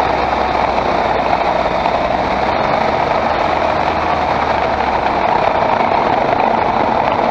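Skoda Octavia 1.8 TSI engine running, with a loud, steady mechanical and road noise and no separate knocks or clatters standing out.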